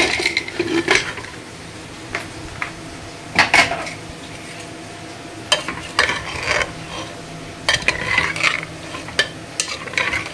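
Metal ladle stirring a thick potato and capsicum curry in an open pressure cooker, scraping and knocking against the pot irregularly, about once a second.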